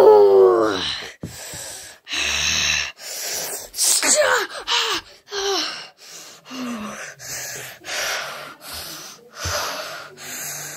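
A person's voice crying out with a falling pitch, then heavy gasping breaths about once a second, some of them carrying short falling moans.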